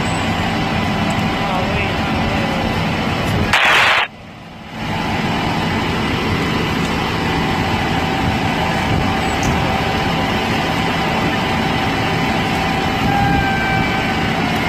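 Fire engine's diesel engine running steadily as the rig moves off slowly. About four seconds in there is a short loud hiss, then the sound drops out briefly and comes back.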